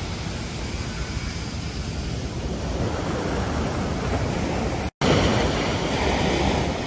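Ocean surf washing onto a beach, a steady rushing noise. It drops out to silence for an instant about five seconds in, then comes back as a louder wash of surf.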